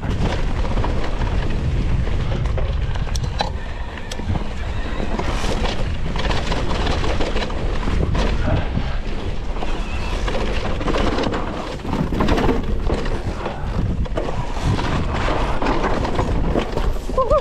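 Mountain e-bike being ridden along a rough singletrack, heard from an action camera: a steady rumble of wind and tyre noise with frequent knocks and rattles from the bike over roots and bumps.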